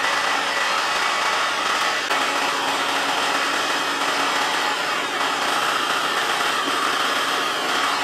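Handheld heat gun blowing steadily: an even rush of hot air with a faint motor whine. It is drying freshly sprayed satin black paint on a plastic part.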